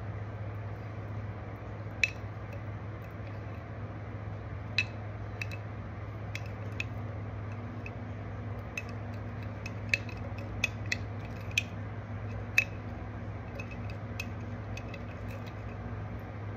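A metal spoon stirring a thin oil mixture in a glass jar, clinking sharply and irregularly against the glass, about one or two clinks a second, over a steady low hum.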